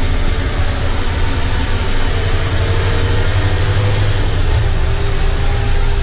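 Komatsu HD605 mining truck's six-cylinder diesel engine and drivetrain running under way, heard from inside the cab as a steady low drone. A whining tone over it drops slightly in pitch about halfway through.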